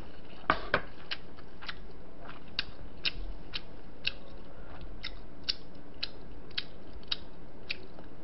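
A person chewing food close to the microphone, with a short wet click from the mouth about twice a second, the loudest clicks in the first second.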